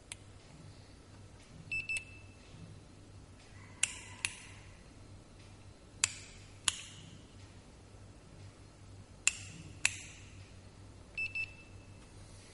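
Handheld infrared thermometer beeping: two quick high beeps about 2 seconds in, and another pair near the end. Between them come three pairs of sharp clicks, louder than the beeps, over a faint steady low hum.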